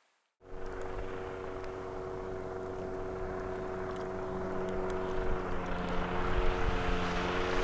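Outboard motor on an inflatable boat running at speed on the water, a steady engine drone with some hiss that slowly grows louder as the boat draws nearer.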